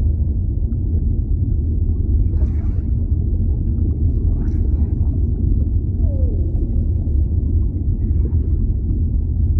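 Underwater ambience: a steady low rumble with a whale call about six seconds in, one short moan falling in pitch, and a few brief faint hissy crackles.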